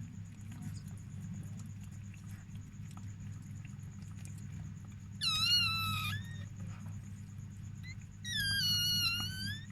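Newborn chihuahua puppy crying: two high-pitched squeals of about a second each, the first about five seconds in and the second near the end, each falling slightly in pitch.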